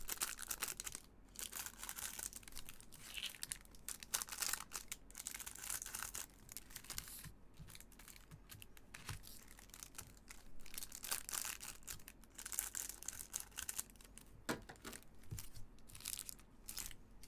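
Plastic wrapper of a Panini Chronicles soccer card pack being torn open and crinkled, with the cards then slid out and handled. Irregular crackling rustles come and go throughout.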